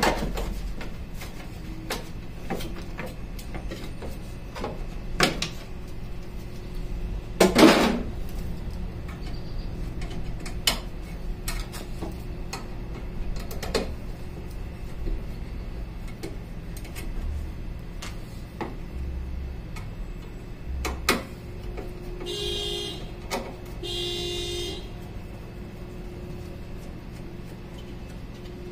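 Scattered clicks and knocks of hand tools and metal parts while the bolts of a pop-up headlight assembly are being taken out. A louder clank comes about eight seconds in, and two short buzzing bursts follow a little before the end, over a steady low hum.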